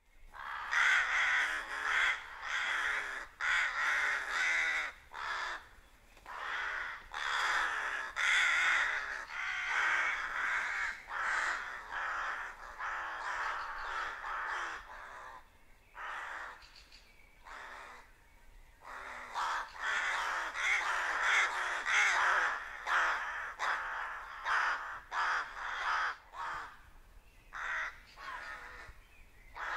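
A flock of rooks cawing, many calls overlapping, with a quieter stretch about halfway through before the calling builds again.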